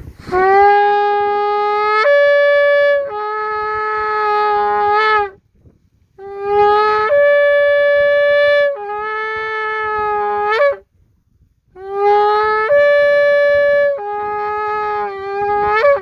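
Shofar horn blown in three long blasts with short breaks between them. Each blast starts on a low note, steps up to a higher note, drops back to the low one and ends with a quick upward flick.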